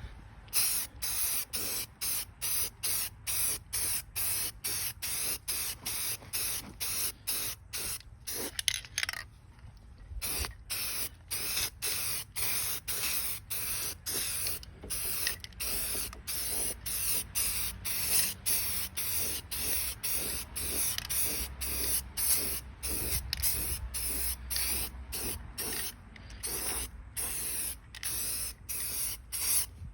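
Aerosol spray paint can hissing in short bursts, about two a second, with a brief pause about nine seconds in, as a final coat of paint goes on.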